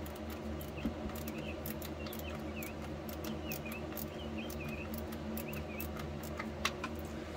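Ratchet with a 10 mm socket clicking in quick irregular runs while the bolts on a truck's oil cooler line block are loosened, over a steady low hum.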